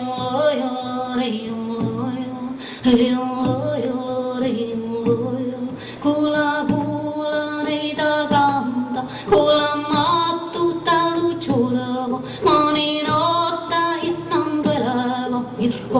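Voices singing a melodic song, with the sung notes held and gliding and little else behind them.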